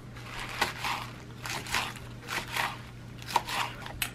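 Red leaf lettuce leaves being torn by hand: a string of short, irregular crisp rips and crunches, with a sharp click about four seconds in.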